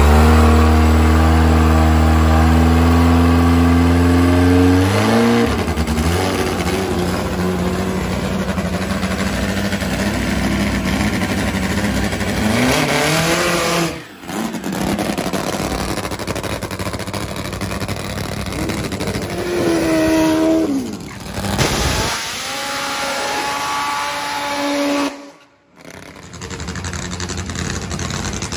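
Drag-racing motorcycle engines running loud: a steady deep note for the first five seconds that then climbs in pitch, followed by more rising revs later. The sound breaks off abruptly a few times.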